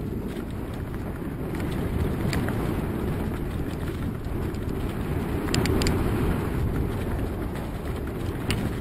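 Mountain bike riding downhill on a dirt and leaf-covered trail: steady wind buffeting on the microphone over the rumble of the tyres on the ground. A few sharp clicks and knocks come from the bike over bumps, with a quick cluster of them just past halfway.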